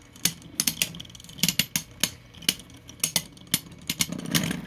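Two large 3D-printed Beyblade tops clashing in the stadium: rapid, irregular sharp clacks of plastic striking plastic over the low whir of their spinning.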